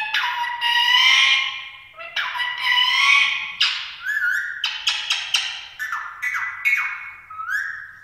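Female ring-necked parakeet calling: a run of loud calls, the first few long and sliding down in pitch, then a quicker string of shorter calls in the second half.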